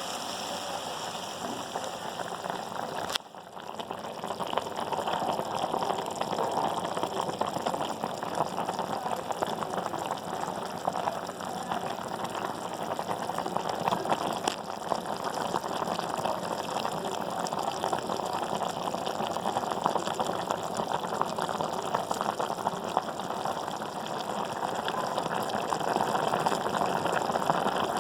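Food cooking on the stove: a steady, dense crackling and bubbling. About three seconds in it cuts abruptly to another cooking clip with the same kind of sound.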